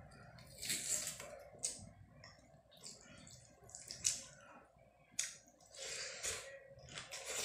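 Wet squishing of fingers mixing rice with curry on a plate, in short irregular bursts, then wet mouth sounds of eating a handful near the end.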